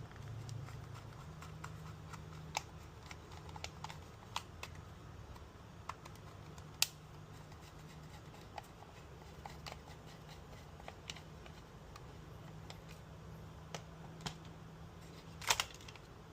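Scattered small clicks and taps of a screwdriver and plastic parts as screws are worked out of a Dyson stick vacuum's cyclone housing, the sharpest click near the end, over a steady low hum.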